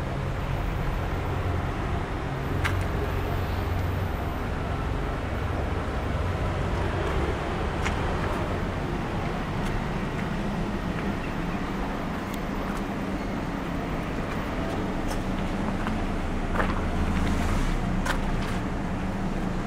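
Steady low background rumble, like distant road traffic, with a few faint clicks scattered through it.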